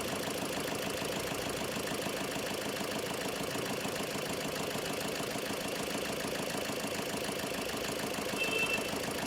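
Tata Zest's engine idling steadily.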